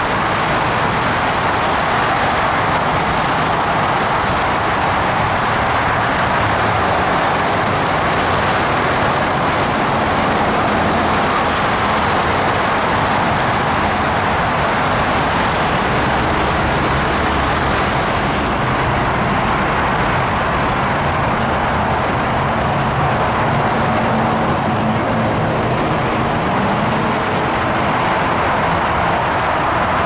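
Steady road traffic noise: cars and trucks driving through an intersection, their engine and tyre noise blending into an even wash of sound.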